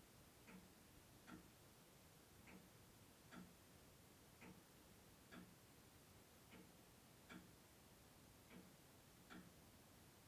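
Clock ticking faintly, about one stroke a second: ten ticks that alternate between a stronger and a weaker stroke in a slightly uneven tick-tock beat.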